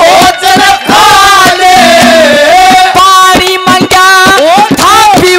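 Male singer performing a Haryanvi ragni into a microphone, loud and continuous, with long held notes that waver and glide in pitch, over instrumental accompaniment.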